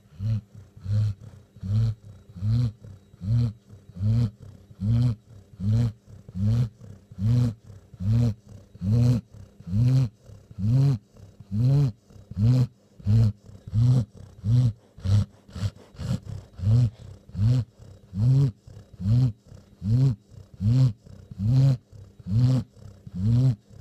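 Rhythmic snoring, a bit more than one snore a second. Each snore is a short groan that rises and falls in pitch, with a faint steady tone underneath.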